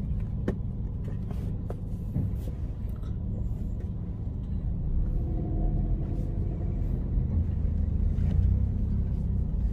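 Low, steady rumble of a car moving slowly, heard from inside the cabin, growing a little louder about halfway through, with a few faint clicks.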